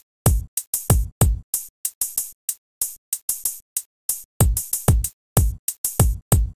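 Background music: a bare electronic drum-machine beat, punchy kick and snare hits with short gaps between them and no other instruments.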